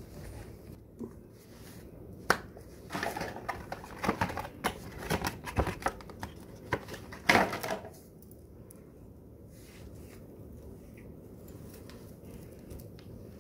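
Plastic and cardboard packaging being handled: irregular crinkling and tapping for about six seconds, then only faint handling sounds near the end.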